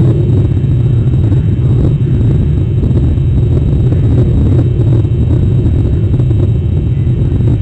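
Loud, steady low rumble with no distinct events or tones.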